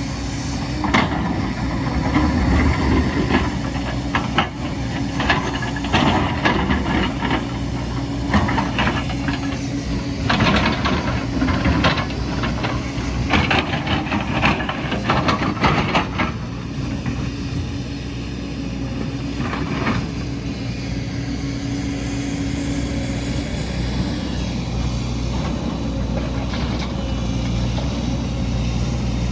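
Heavy diesel construction machine running steadily, with repeated clanks and scraping knocks over roughly the first half, then a smoother, steadier run.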